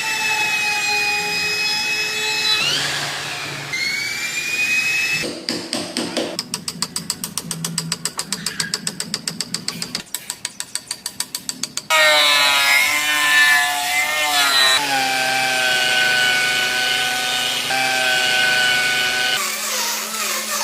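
Woodworking power tools running in a series of short cuts: motor whines holding or sliding in pitch, a middle stretch of rapid, even ticking at about six a second, then a whine that wavers as the tool works under load.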